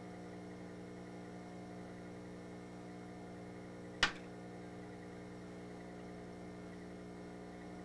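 Steady electrical hum, with a single sharp click about four seconds in.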